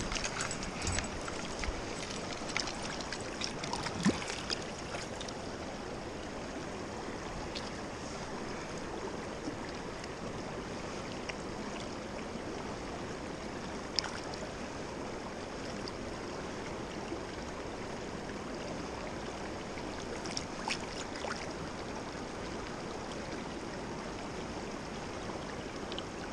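Shallow river water running steadily over rocks, with light splashing and a few small knocks in the first few seconds and one sharp click about 14 seconds in, as a trout is handled in a landing net in the water.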